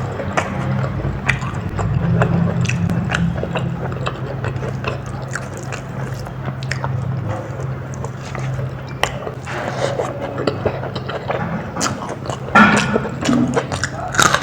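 Close-miked mukbang eating sounds: a person chewing and biting soya biryani and raw mango, with many short wet mouth clicks and smacks. A steady low hum runs underneath, and there is a louder burst of biting near the end.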